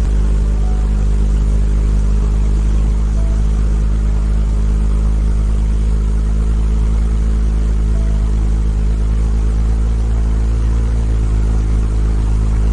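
Hummingbird wings humming: a loud, steady low hum with evenly spaced overtones and no change in pitch.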